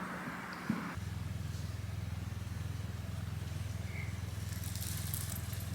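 A steady low hum with a fast flutter, like a motor running. It abruptly replaces a different, higher steady hum about a second in, just after a single click.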